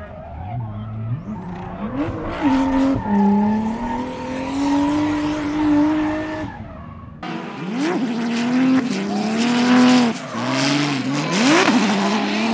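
Nissan Skyline GTR R33's RB26DETT twin-turbo straight-six revving up and down repeatedly while drifting, over tyre squeal. The sound changes abruptly about seven seconds in, where a second drift run begins.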